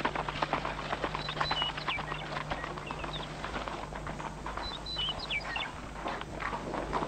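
A horse's hooves clip-clopping at a walk on a hard drive, with birds chirping briefly about a second in and again near the middle, over a steady low hum.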